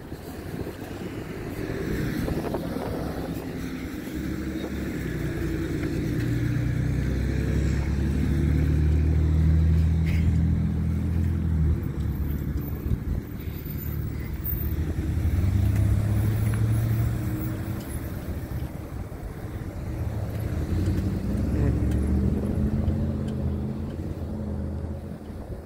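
Road vehicles passing on the street, their engine hum swelling and fading about three times.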